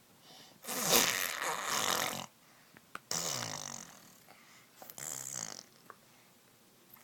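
A young child blowing raspberries, a rough, buzzing lip sound, in three bursts. The first, about a second in, is the longest and loudest.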